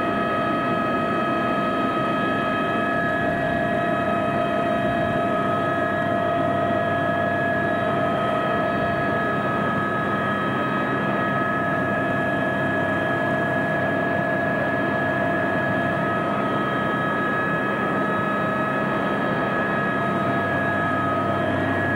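Cabin noise of an Aérospatiale AS350B Squirrel helicopter in flight: its Turbomeca Arriel turboshaft and rotor running steadily, a constant whine of several steady tones over a rumble.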